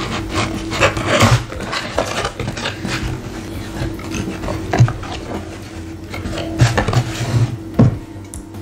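Cardboard takeaway box being opened and handled close to the microphone: irregular rustling, rubbing and scraping of the cardboard, with several sharper crackles.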